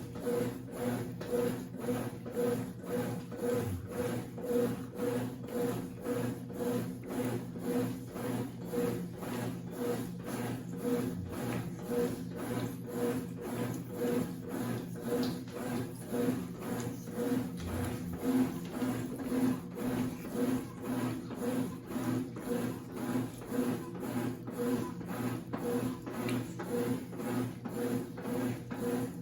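Consul 8 kg CWC08 top-load washing machine running its wash cycle with a single-bed bedspread inside: a motor hum that swells and fades in a steady, regular rhythm as the tub agitates the load.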